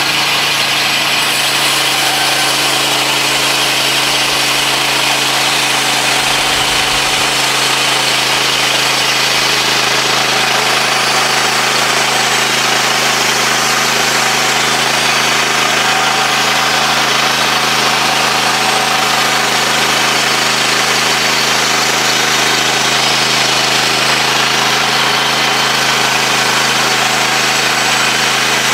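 Woodland Mills HM126 portable bandsaw mill, its gas engine running steadily under load as the saw head is pushed through a log, cutting a 2-inch-thick slab.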